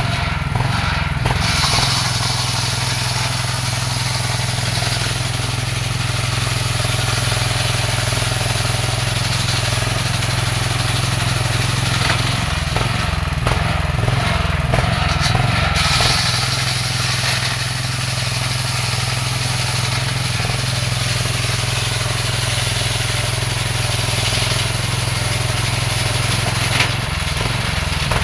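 Homemade table saw running with its blade cutting wood: a steady motor hum under a loud, hissing whine. The note wavers as the load changes, around the middle and again near the end.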